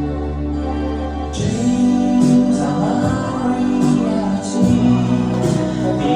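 Music for a wedding entrance: held chords, then about a second and a half in, a song with singing and a light beat begins.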